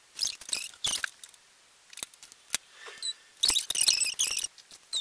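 Hands folding and pressing a fabric scrunchie as it is hot-glued shut: short bursts of scratchy rustling and small clicks, the longest stretch about three and a half seconds in.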